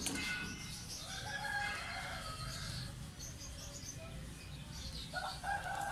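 Birds chirping and calling, with a louder run of calls near the end.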